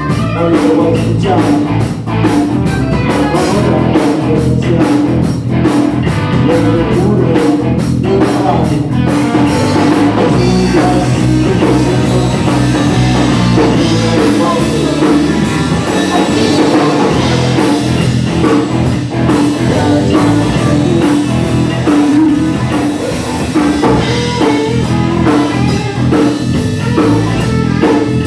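Rock and roll band playing a boogie: electric guitar, bass and drum kit keeping a steady beat, with no sung lyrics.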